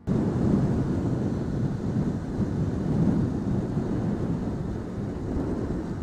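Steady wind rush on the camera microphone of a Yamaha R15 sport bike riding at road speed, mixed with the bike's engine and road noise.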